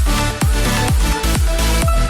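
Background music: an electronic dance track with a deep kick drum beating about twice a second.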